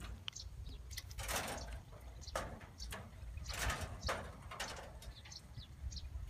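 Several short rustling swishes as a long fishing rod is handled, with small birds chirping faintly and a low rumble underneath.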